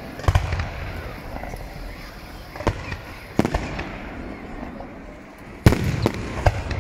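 Aerial firework shells bursting overhead: about five sharp bangs at uneven intervals, the loudest about a second before the end.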